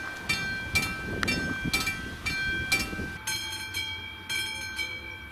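Level crossing warning bell ringing about twice a second, with a train's rumble underneath. A little past halfway it changes to a slower ring, about once a second, over a steady tone.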